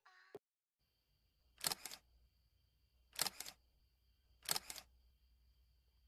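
Three sharp click sound effects, each a quick double click, about a second and a half apart: the button-press clicks of a subscribe animation, over a faint steady hiss.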